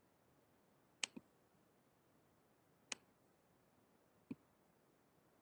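Computer mouse clicks over near silence: a quick double click about a second in, then single clicks near three seconds and just past four seconds.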